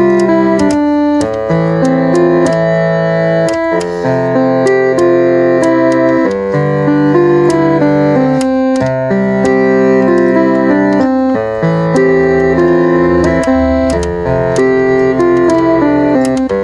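Background piano music, with sustained chords changing every second or two.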